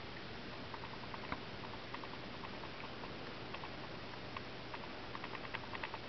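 Cockatiel grinding its beak: soft, irregular clicks in short quick runs, the sound of a relaxed, contented bird.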